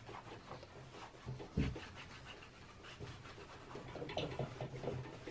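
Cloth rag rubbed over the perforated metal panel of a planar magnetic speaker, wiping with cleaning benzine to dissolve leftover glue: faint, irregular rubbing strokes, with a soft thump about one and a half seconds in.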